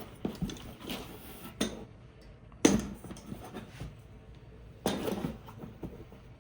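Handling noise from unpacking a rifle parts kit: bagged parts and packaging rustled and set down, with a few sharp knocks, the loudest about two and a half seconds in and another near five seconds.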